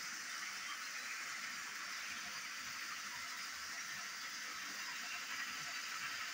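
Battery-powered toy train running along plastic track: a steady whirring hiss from its small motor and wheels.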